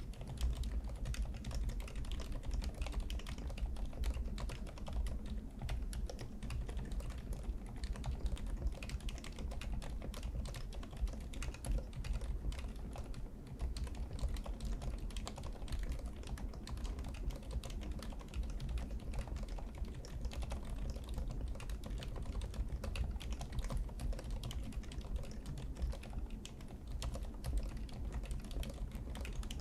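Fast, continuous typing on a Varmilo VA108M V3 full-size mechanical keyboard with Cherry MX2A silent red linear switches: dense, muted keystroke clacks, deep in tone.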